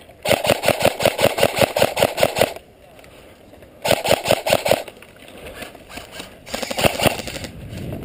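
Airsoft electric rifle fired on full auto from the shooter's position: a rapid clicking rattle from the gearbox and BBs leaving the barrel. It fires in three bursts, a long one of about two seconds and then two short ones.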